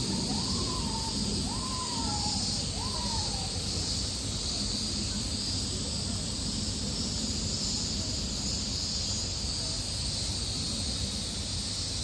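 Steady outdoor hiss with a constant high drone, and four short squealing calls in the first few seconds, each rising then falling in pitch.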